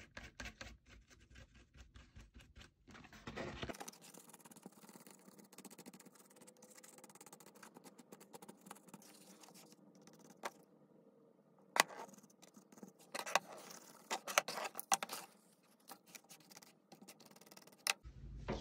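A small paintbrush scrubbing and dabbing paint into embossed cardstock: faint, rapid scratchy ticks, with scattered sharper clicks and taps later on.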